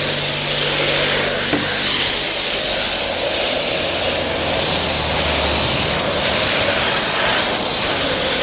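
Car-wash foam lance spraying active foam onto a car: a steady hiss that swells and eases as the spray sweeps, over a steady low hum.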